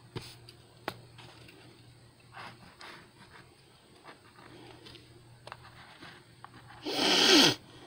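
Faint pencil and eraser scraping on notebook paper, with a few light clicks. Near the end, a short, loud breathy sound that falls in pitch.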